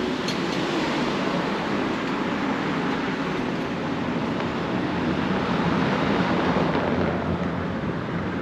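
Steady running noise of a moving vehicle heard from inside: an even rumble and rushing hiss.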